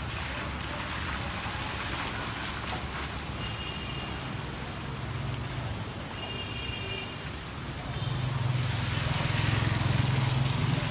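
Steady rain falling, an even hiss, with a low rumble that grows louder about eight seconds in.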